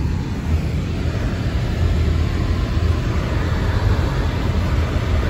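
Subaru driving through deep snow: a steady low rumble of engine and tyres, with a hiss of snow and wind over it.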